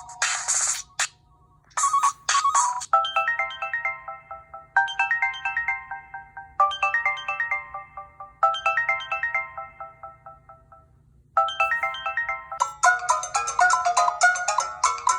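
Samsung Epic 4G (SPH-D700) stock ringtones played one after another. After the end of one tone and a short tone, a melodic electronic ringtone repeats a falling run of notes four times; about eleven seconds in, a new, busier ringtone begins.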